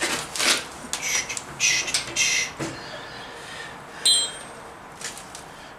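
A CO2 fire extinguisher being handled and wedged upside down against a metal welder stand: a run of short scraping and rustling noises, then a single sharp ringing metal clink about four seconds in.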